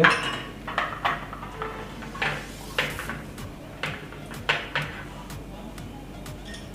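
Light metallic clinks and taps of stainless steel idli mould plates being handled and set down while oil is brushed into their cups: about a dozen scattered knocks, thinning to a few faint ticks near the end.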